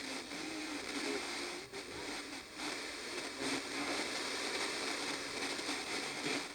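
Shortwave-style radio being tuned between stations: a steady hiss of static, thin and tinny with no low end, with faint broken fragments of a broadcast and a few brief dropouts as the dial moves.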